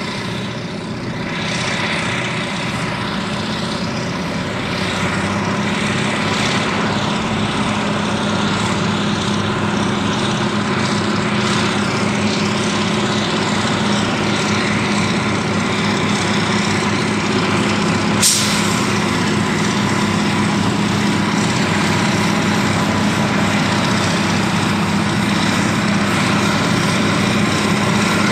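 Caterpillar 637 twin-engine scraper's diesel engines running steadily under load as it cuts and loads dirt into its bowl. A single sharp click about 18 seconds in.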